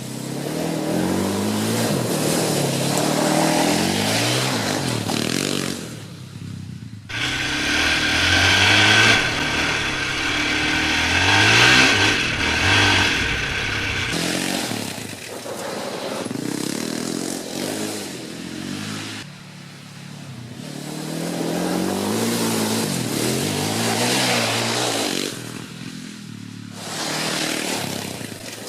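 Polaris Outlaw 525 ATV's KTM four-stroke single-cylinder engine revving up and down again and again as it is ridden hard. It drops off the throttle briefly a few times, then climbs back up.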